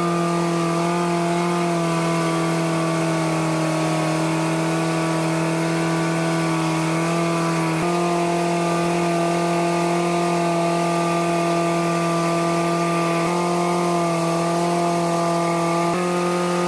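Boat engine running at a steady speed, its pitch stepping slightly a few times.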